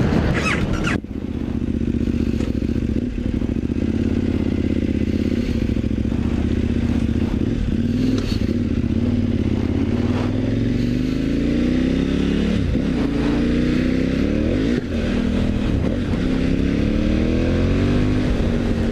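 Motorcycle engine running steadily at low speed. About halfway through it accelerates, its pitch rising and falling back over a few gear changes.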